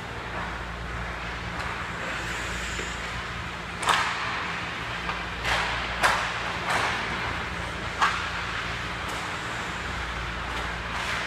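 Ice hockey play: skate blades scraping the ice and sharp clacks of sticks and puck, clustered in the middle, over a steady low hum.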